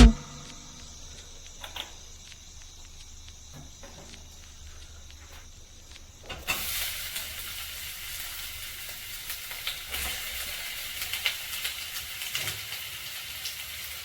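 Quiet room tone with a few faint clicks, then about six seconds in, food starts sizzling in a frying pan: a steady hiss with small crackles.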